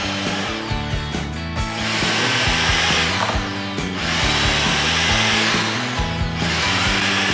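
Corded Skil electric drills boring into a wooden board with a twist bit, in short runs. Each run spins up with a rising whine and winds down as the trigger is let go. Background music plays underneath.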